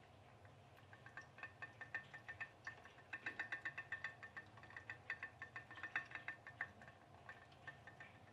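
Home-made pop-pop boat running, its coiled aluminium-tube boiler heated by a tea light, giving a faint rapid ticking of several clicks a second as steam pushes water out of the tube and it is sucked back in. The ticking starts about a second in, is strongest in the middle and tails off near the end.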